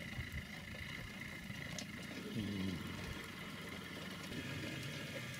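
Vehicle engine idling, a steady low hum that grows stronger about two seconds in.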